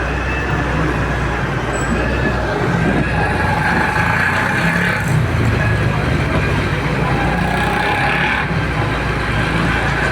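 Heavy-duty excavator's diesel engine running steadily under load, with a faint steady high whine over the rumble.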